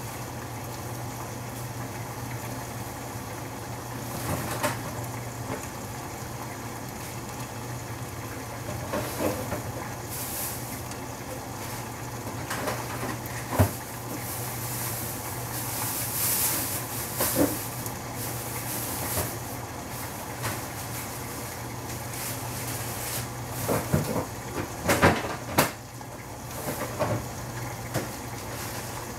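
Gas burner running under a covered stainless-steel pot of stew cooking, a steady hum and hiss, the hiss swelling about halfway through. A few light knocks and clicks come and go.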